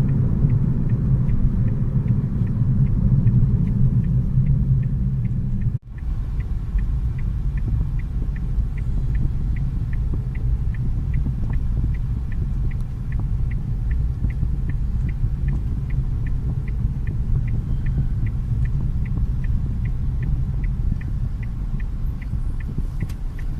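A moving car's engine and road noise, a steady low rumble, broken by a short dropout about six seconds in. After the break a faint, even ticking runs on at about two ticks a second.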